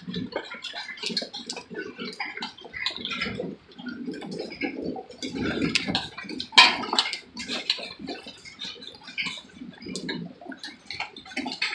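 Hailstones falling and striking hard surfaces in a dense, irregular clatter of small impacts over a steady wash, with one louder hit about six and a half seconds in.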